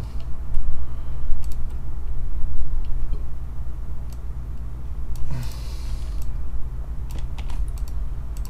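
Scattered clicks and taps of a computer mouse and keyboard over a steady low hum, with one brief breathy rustle just over five seconds in.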